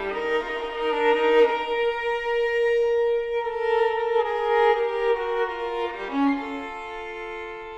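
Solo unaccompanied violin playing slow, sustained notes with vibrato. The last note fades away near the end.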